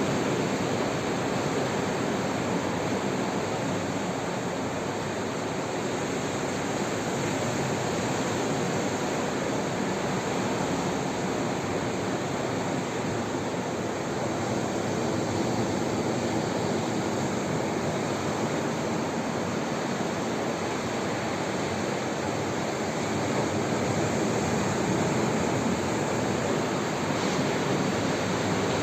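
Atlantic Ocean surf: a steady, unbroken wash of breaking waves.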